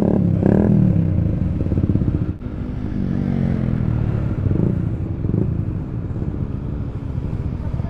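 Sport motorcycle engine running at low speed under light throttle, heard from the rider's seat, with small rises and falls in the engine note and a brief drop in sound about two and a half seconds in.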